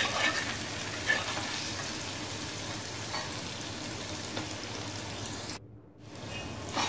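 Chopped onion, garlic and curry leaves sizzling in hot oil in a stainless steel pot, stirred with a steel spoon that taps the pan now and then. The sizzle cuts out briefly near the end, then resumes.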